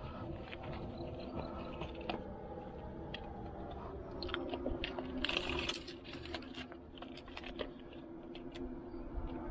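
Gear being handled in a backpack on rocks: scattered small clicks, taps and fabric rustles, with a brief zip-like rasp about five seconds in. A steady low hum runs underneath.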